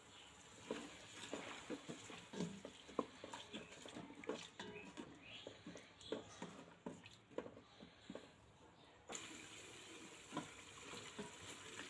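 Wooden spatula stirring a thick spice paste in a steel pot: faint, irregular soft taps and scrapes as the masala is fried down (kosha) with oil before the meat goes in.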